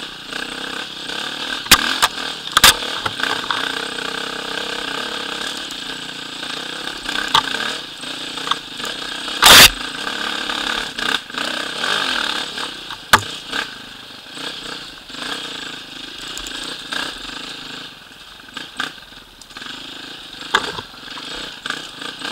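Enduro motorcycle engine running as the bike rides a rough dirt trail, its note rising and falling. Sharp knocks and clatter from the bike hitting bumps; the loudest is a hard thump about halfway through.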